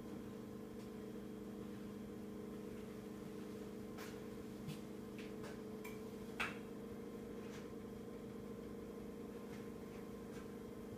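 A steady low hum with a few faint short clicks, the sharpest about six and a half seconds in.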